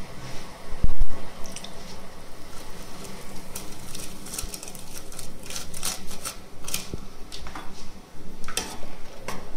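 Water boiling in a large enamel pot as homemade noodles are dropped in by hand. A dull thump about a second in is the loudest sound, and scattered sharp clicks and taps follow through the second half.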